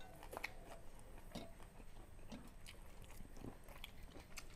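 Close-miked chewing and biting while two people eat stir-fried chicken liver and chicken feet with rice by hand: soft, scattered mouth smacks and small clicks.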